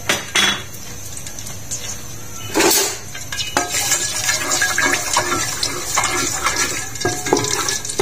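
A wooden spoon knocking against and scraping the bottom of an aluminium pot while stirring whole spices in oil. There are a few knocks near the start, a louder one about two and a half seconds in, then steady small scrapes and clicks as the stirring goes on.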